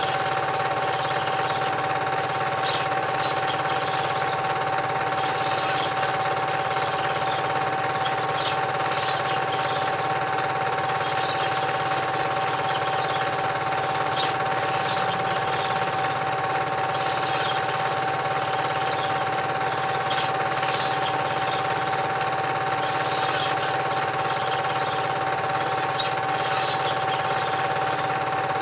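Steady mechanical whirr and fast rattle of a cine film projector running, with a constant hum-like tone throughout.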